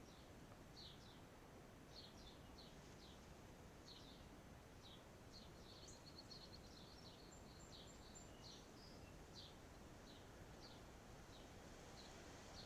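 Faint outdoor ambience: small birds chirping, many short high chirps in quick runs, with a few thin higher notes just past the middle, over a soft steady background hiss.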